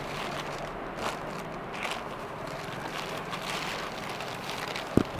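Rustling of a lightweight kota-style saree with zari weaving as it is unfolded and spread out by hand, with a single sharp tap about five seconds in.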